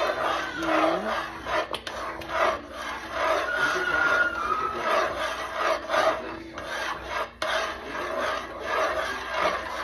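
A utensil scraping and stirring a thick, thickening maja blanca mixture of coconut milk and cornstarch in a pot, in steady repeated strokes, kept up fast and continuously so the pudding does not stick.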